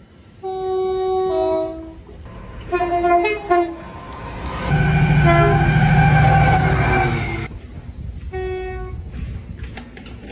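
Train horns sounding in a quick string of separate blasts. The first steps down in pitch partway through, a second follows, then a longer, louder blast about halfway through over the rumble of the train, and a short toot near the end.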